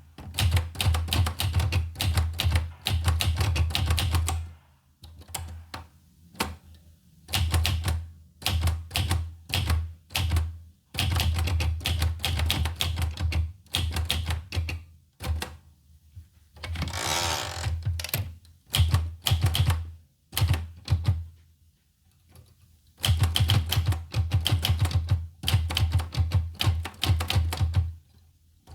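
Olivetti Lettera 25 manual portable typewriter being typed on: bursts of rapid, sharp keystrokes broken by short pauses, with one longer rasping sound of about a second near the middle.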